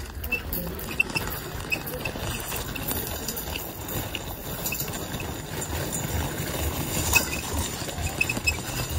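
Footsteps of people walking on a loose gravel path: an uneven run of crunching steps.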